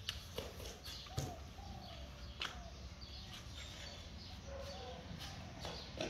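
A toddler's light, scattered footsteps on a rubber playground surface, with short bird chirps over a steady low background hum.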